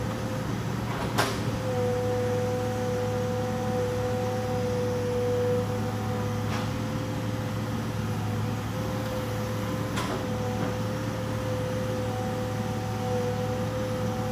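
Excavator engine running steadily with a constant low hum and a steady whine over it, broken by three sharp knocks, the loudest about a second in, as logs are handled.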